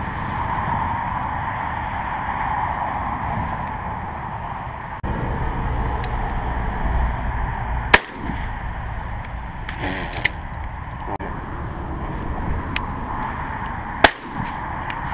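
Two shotgun shots from a double-barrelled shotgun, about six seconds apart, each a single sharp crack. A few light clicks come between them, over a steady rush of wind on the microphone.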